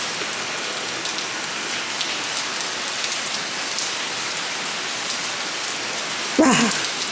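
Heavy rain falling steadily, hissing evenly on the ground and nearby surfaces. A short voice cuts in near the end.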